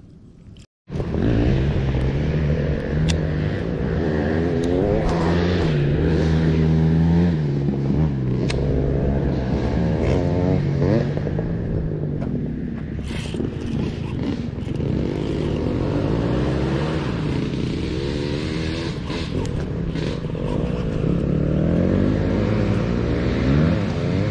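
A motor vehicle's engine running steadily, its pitch slowly rising and falling as it speeds up and eases off. It starts after an abrupt cut about a second in.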